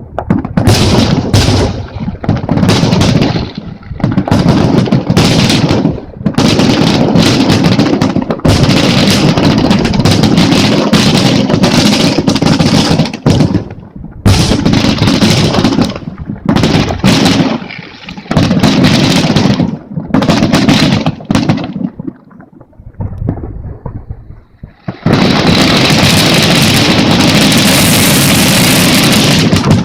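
Fireworks display: aerial shells bursting in rapid, overlapping booms that rumble and echo, with a brief lull about two-thirds through. Near the end a long, steady hissing crackle takes over.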